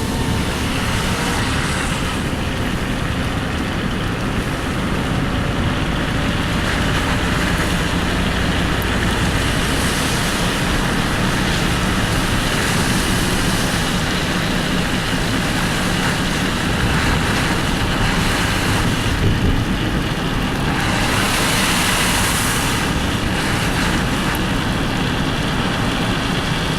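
Steady road noise of a moving car heard from inside: engine rumble and tyre noise, with the tyre hiss swelling twice.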